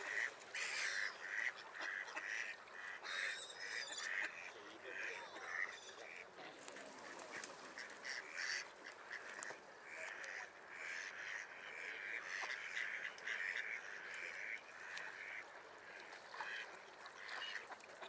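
A flock of mallards and gulls calling, with many short, overlapping quacks and calls throughout.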